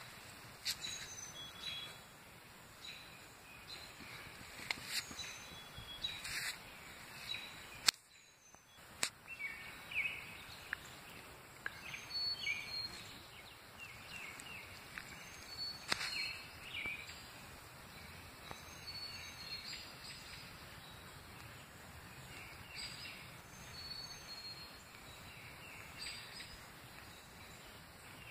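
Quiet outdoor ambience with scattered short bird chirps and occasional sharp clicks, the sound dropping out briefly about eight seconds in.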